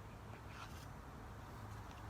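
Faint room tone: a steady low hum, with a few soft, brief scratchy sounds about half a second in and again near the end.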